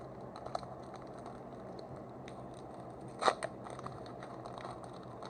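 Foil wrapper of a trading-card booster pack crinkling faintly as it is picked at and torn open, with one sharper rip about three seconds in.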